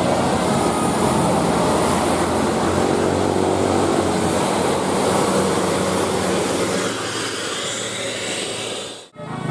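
Large bus driving past close by: engine running under a dense rush of tyre and wind noise that eases a little near the end, then cuts off suddenly about nine seconds in.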